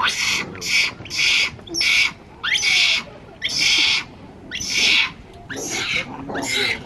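Japanese macaques screaming in a fight: a run of about nine harsh, high-pitched screams, each about half a second long, some with a rising or falling sweep in pitch.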